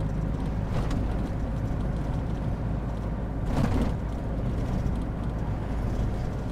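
Toyota 3L four-cylinder diesel of a 1998 Toyoace 4x4 truck running as it drives along, heard from inside the cab as a steady low engine and road rumble. A brief louder bump comes a little past halfway.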